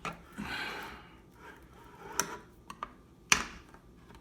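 Kitchen items being handled: a brief rustle about half a second in, then a few sharp clicks and taps, the loudest a little after three seconds.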